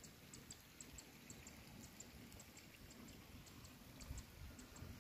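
Near silence: faint outdoor ambience with soft, high ticks several times a second and a low rumble that swells slightly about four seconds in.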